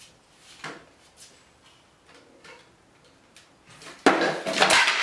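Light knocks of pine boards being handled on a wooden workbench, then about four seconds in a loud clatter as a board topples and falls onto the bench and the other boards.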